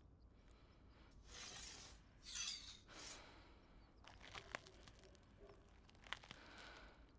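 Soft film foley: three short rustling swishes, like cloth or handling noise, followed by a run of scattered light clicks and ticks.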